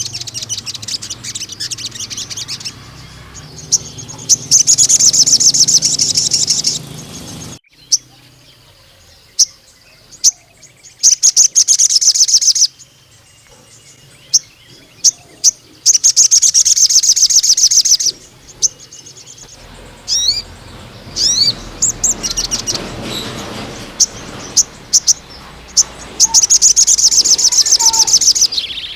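Sogon (crimson sunbird) singing: several long, very rapid, high-pitched trills of one to three seconds each, with sharp single chips and a few quick rising whistles between them.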